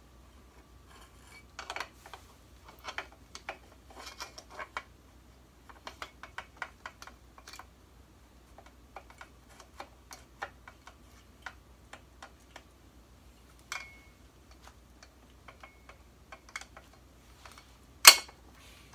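Irregular small metal clicks and taps as a new clutch throwout bearing and its release fork are worked into place on a 2007 Honda Fit manual transmission, with one sharp, much louder click near the end.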